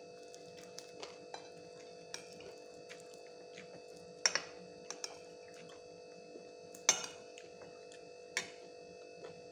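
Crispy fried chicken skin crackling as it is torn apart by hand and bitten: scattered small crackles, with sharp loud cracks about four, seven and eight and a half seconds in. A steady hum runs underneath.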